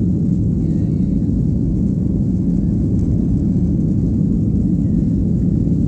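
Steady, loud low rumble of jet engines and airflow heard inside the cabin of a Ryanair Boeing 737 airliner.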